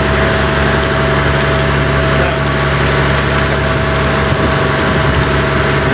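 An engine running steadily at an even speed: a constant low hum with a steady higher tone above it.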